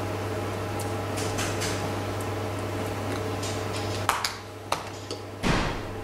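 A steady low hum with faint scattered ticks. About four seconds in it drops away with a sharp click, followed by another click and a short, louder rustling thump near the end.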